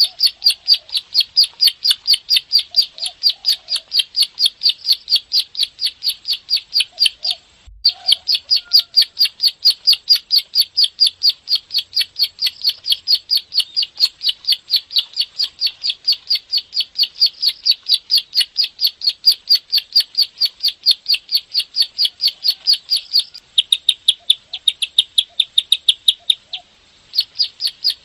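Plain prinia (ciblek sawah) singing a long, fast run of sharp repeated 'klik' notes, about three to four a second, broken once by a short pause about a third of the way in. Near the end the pattern changes to a quicker, slightly different note.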